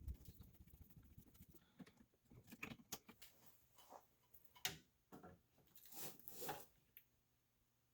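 Faint irregular rustling and scratching with scattered sharp clicks, stopping about seven seconds in.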